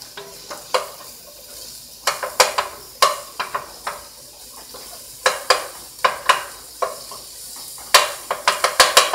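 Chopped mushrooms sizzling in olive oil in a pot while a wooden spoon stirs them. A steady sizzle runs under quick scraping, knocking strokes of the spoon against the pot, which come in bunches a few seconds apart.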